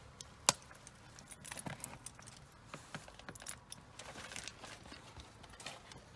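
A West Highland white terrier's collar ring and metal tag jingle and clink while the dog clambers out over a car door sill, with scattered clicks and scrapes of claws and a single sharp click about half a second in.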